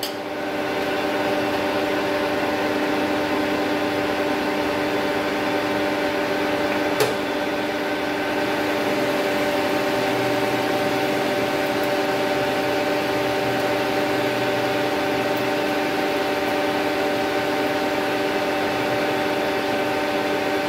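Manual lathe running at steady spindle speed, its geared headstock giving a steady whine of several pitched tones over a hum while the tool takes the final light facing cut on a bush. A single brief click about seven seconds in.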